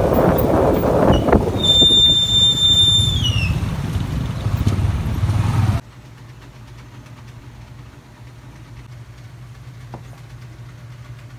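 Street traffic noise, vehicles running past, with a high steady tone held for about a second and a half that slides downward as it stops. About six seconds in it cuts off suddenly to quiet room tone with a low steady hum.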